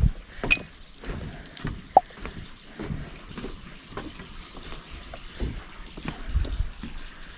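Irregular light knocks and thuds of footsteps on wooden boardwalk planks, with a few plinks of water dripping at a spring's stone gallery.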